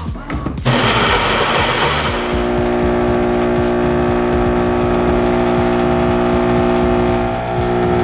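Philips 5400 LatteGo super-automatic espresso machine brewing a single espresso: a short noisy whir under a second in, then its pump humming steadily as the shot pours.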